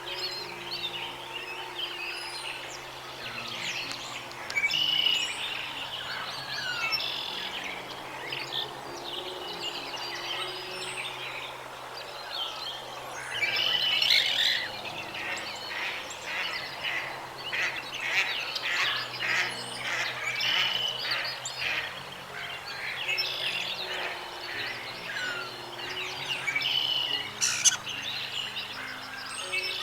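Birds chirping and trilling with many short calls, and a quick run of rapid repeated notes about halfway through. Low, sustained tones that change pitch in steps run underneath.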